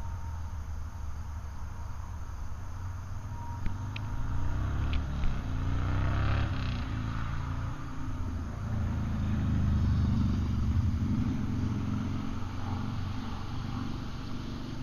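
Steady low rumble of outdoor road traffic, with one vehicle passing close by about six seconds in and a few faint clicks.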